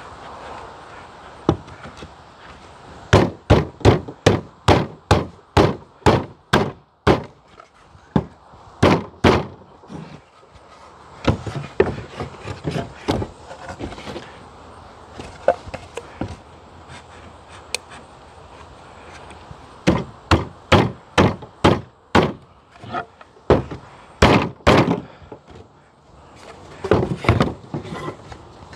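Pine hive-box boards with finger joints being bounced against a folding tabletop to knock the joints together: runs of sharp wooden knocks, about two a second, in several bursts with short pauses between.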